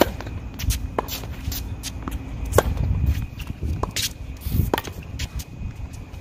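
Tennis serve: a sharp racket-on-ball crack right at the start, then several more racket hits of the rally a second or two apart, with short scuffs of tennis shoes on the hard court. Wind rumbles on the microphone underneath.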